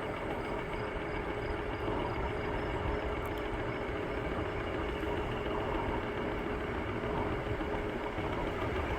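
Bird electric scooter riding at steady speed: a constant hum with a steady tone, over low wind and road rumble on the microphone.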